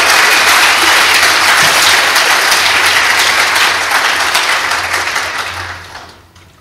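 Congregation applauding, loud and sustained, then dying away near the end.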